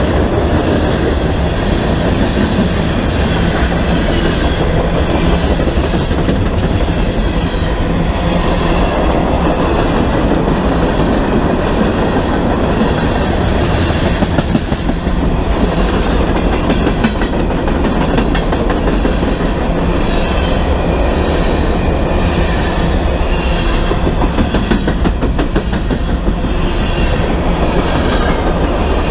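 A freight train rolling past close by, a steady heavy rumble of cars on the rails with rapid wheel clicks over the rail joints through the second half.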